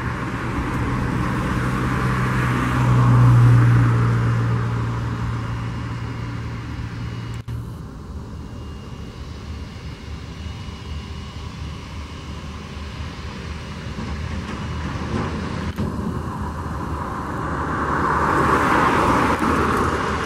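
Airbus A319 jet engines running at taxi power as the airliner rolls toward the listener, a steady rushing whine that grows louder near the end as it comes close. A low steady hum is under the first part and breaks off about a third of the way in.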